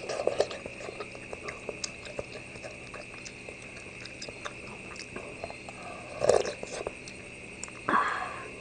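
Close-up eating sounds: chewing and slurping duck blood, enoki mushrooms and spicy hotpot broth, with small clicks of plastic chopsticks and a metal spoon against the metal pot. Louder slurps come near the start, about six seconds in and near the end, over a steady high whine.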